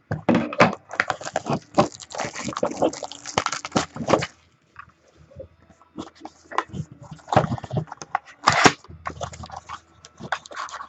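Crinkling and crackling of plastic wrapping as a sealed trading-card pack is torn open and handled. The crinkling is dense for the first four seconds, thins out to scattered clicks, and comes back in a short burst near the end.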